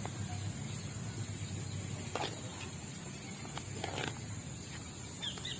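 A person eating noodles from a leaf plate with a spoon, making a few short scraping and chewing noises about two and four seconds in. Near the end a bird chirps several times in quick succession.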